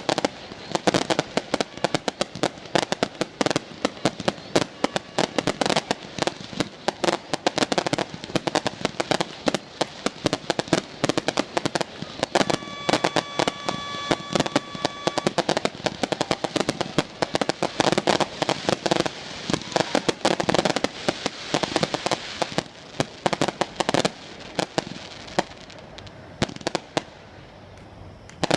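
Fireworks finale: a rapid, dense barrage of shells bursting, bang after bang with crackling, thinning near the end to a fading crackle. About halfway through, a steady tone sounds for about three seconds over the bangs.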